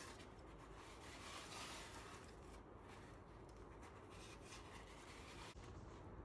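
Near silence, with faint rubbing noise.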